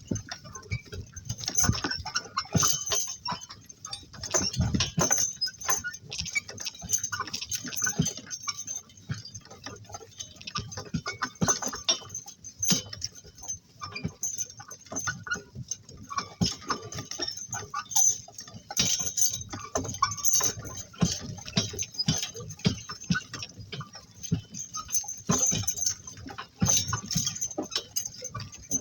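Two donkeys pulling a work cart: an irregular clatter of hooves, jingling harness and rattling cart.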